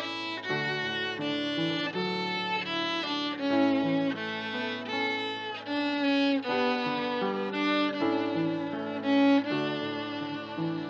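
Background music: a bowed violin playing a slow melody over lower held notes.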